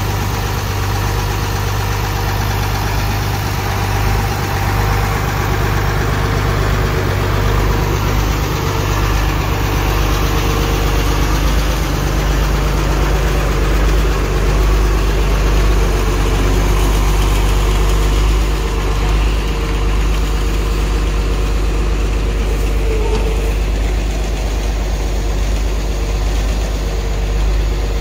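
Mercedes-Benz Unimog's diesel engine idling steadily at an even, low pitch.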